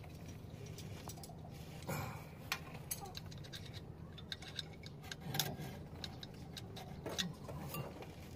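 Scattered light metallic clicks and clinks as brake parts and tools are handled on a rear drum-brake assembly, with a few sharper ticks, over a faint steady low hum.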